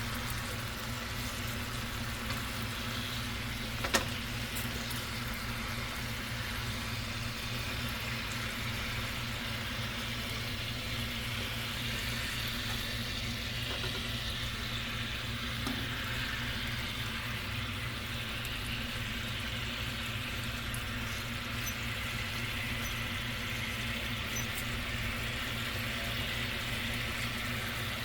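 Marinated chicken sizzling as it cooks: a steady hiss over a low steady hum, with one sharp click about four seconds in.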